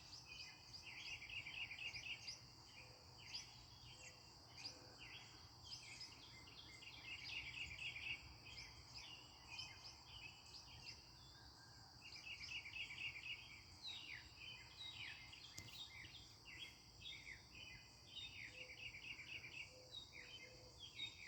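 Northern mockingbird singing faintly: a run of varied chirping phrases, each repeated rapidly several times before switching to the next, mimicking the calls of other birds. A steady high insect drone continues underneath.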